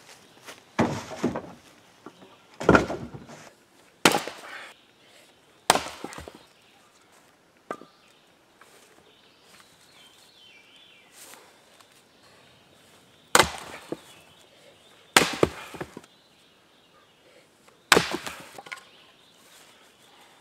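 Firewood being split by hand with an axe: about seven sharp chops and cracks of wood splitting, a second or two apart, with a pause of several seconds in the middle.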